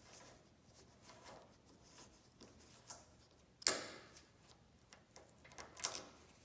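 Allen key ticking against small screws as they are backed out of an aluminium cap, with one sharp metal click about three and a half seconds in and a short cluster of clicks near the end.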